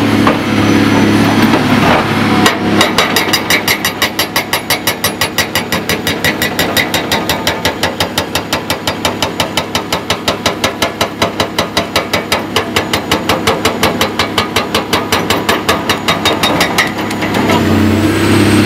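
Hydraulic breaker hammer on a Caterpillar 345B excavator pounding rock and concrete in a fast, even stream of blows. The blows start about two and a half seconds in and stop near the end. The excavator's diesel engine runs steadily underneath and is heard alone before and after the hammering.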